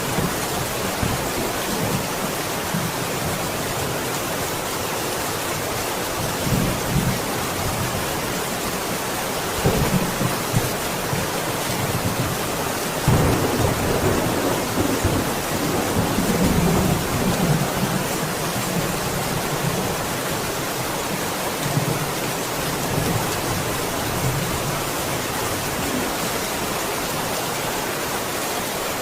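Steady heavy rain falling, with low rumbles of thunder swelling up several times, the longest about halfway through.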